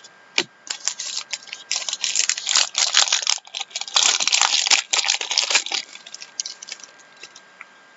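Foil trading-card pack wrapper being torn open and crinkled for several seconds, followed by a few light clicks as the cards are handled.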